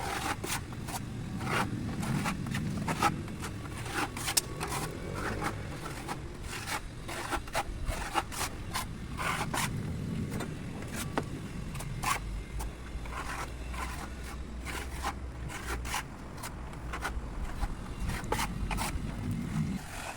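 Irregular scraping and clicking, many short strokes at no even pace, over a low steady rumble.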